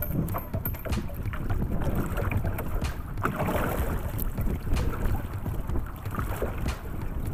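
Steady wind noise on the microphone over choppy sea water lapping and splashing against a small outrigger boat's hull.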